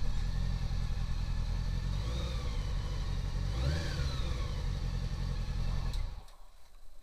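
Honda CB750's air-cooled inline-four engine running at idle, the revs rising and falling briefly about four seconds in, then the engine is switched off and the sound cuts off suddenly about six seconds in.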